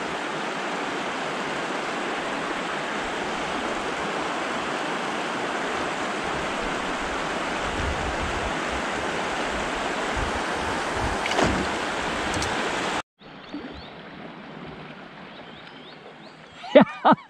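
River current rushing steadily around the kayak, with a single light knock about eleven seconds in. The sound cuts off abruptly about three-quarters through to a quieter, softer water sound.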